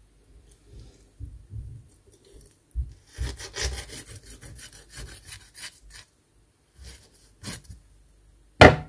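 Kitchen knife sawing and scraping through a perch along its backbone as it is filleted on a wooden cutting board, in a run of rasping strokes about three to six seconds in. A single sharp knock near the end.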